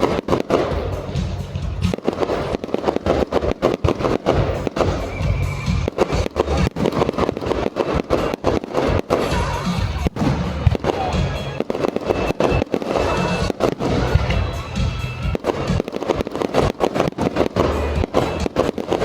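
Fireworks going off in a rapid, continuous barrage of bangs and crackles, with music playing underneath.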